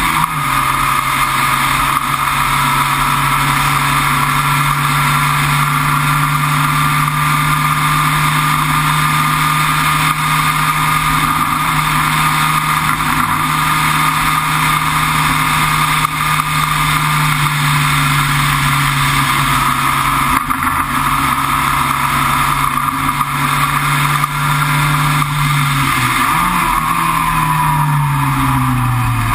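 Sports racer's engine heard onboard, holding steady revs for most of the stretch, then several downshifts near the end, the pitch stepping down with each.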